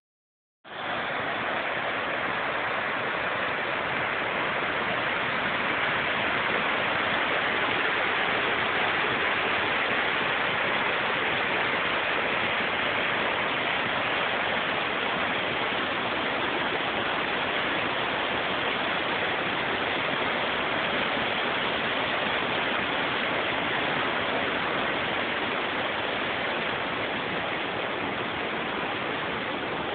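Creek flowing with snowmelt: a steady rush of running water that starts just under a second in.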